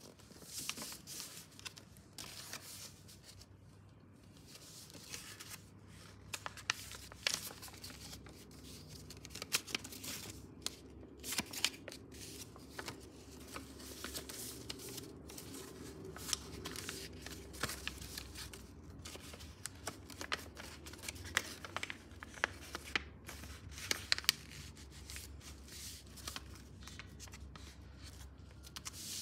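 A sheet of paper being folded and creased by hand: rustling, with many short sharp crackles as folds are pressed flat.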